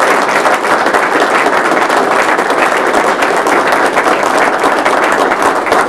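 A small crowd applauding: dense, steady hand clapping that holds at the same level.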